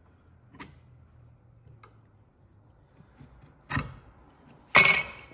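Chisel work on timber at a workbench: a faint tick, then two sharp knocks about a second apart, the second louder with a brief metallic ring, as a chisel is worked into a knifed line to cut a trench for the saw.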